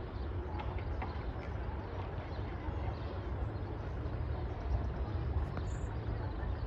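Steady low rumble of outdoor background noise, with a few faint ticks.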